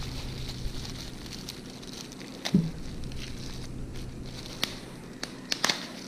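Small objects being handled on a workbench: scattered light clicks and knocks, with one louder knock about two and a half seconds in and a quick cluster of clicks near the end, over a steady low hum.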